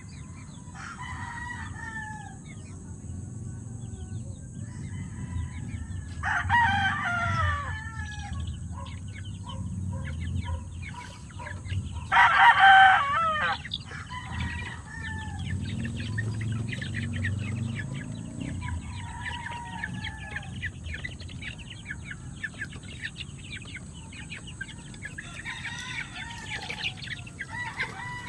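Gamefowl roosters crowing, with several crows and the loudest about six and twelve seconds in, over clucking and other chicken calls throughout.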